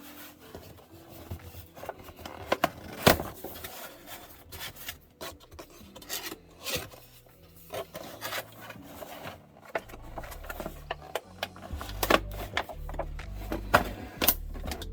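Cardboard toy box being opened and its contents worked loose by hand: irregular rubbing and scraping with sharp clicks and taps. Low background music comes in for the last few seconds.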